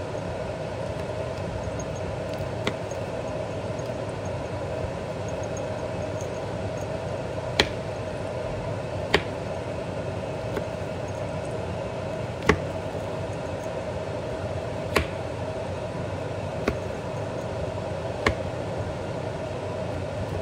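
A chef's knife cutting Vietnamese beef meatballs in half on a wooden cutting board, each cut ending in a short sharp knock of the blade on the board, about eight knocks a couple of seconds apart. Under it runs a steady mechanical hum.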